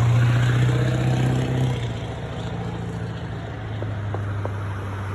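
A motor vehicle engine running steadily, dropping off sharply about two seconds in to a fainter hum. A few faint pops come near the end.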